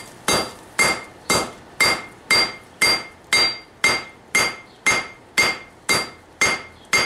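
Hammer blows on a hot steel billet on an anvil, struck steadily about twice a second, each blow with a short bright ring from the anvil. The billet is being hammered at forge-welding heat.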